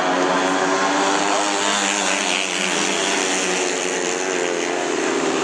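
Speedway motorcycles' 500 cc single-cylinder methanol engines racing together on the track: a continuous drone of several engines at once, their pitch rising and falling.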